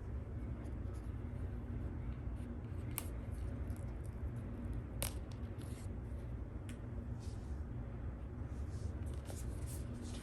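Paper seal strip being peeled slowly off a phone box, a faint scraping and tearing with a few sharp clicks.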